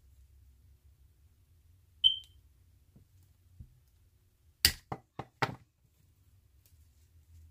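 Handling of wire snips and wire-stemmed artificial flowers: a short clink with a brief ring about two seconds in, then a quick run of four sharp clicks about a second apart or less, near the five-second mark.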